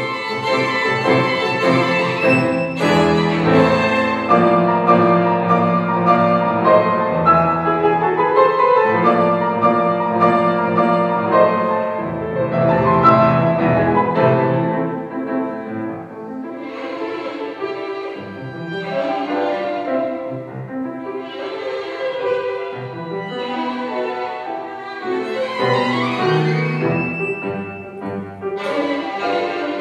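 Violin and grand piano playing classical music together: the violin carries a bowed melody over the piano's chords.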